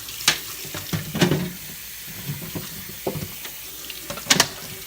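Tap water running and splashing as plastic refrigerator drawers and bins are rinsed in a kitchen sink, with a few clatters of the plastic knocking in the sink, the loudest near the end.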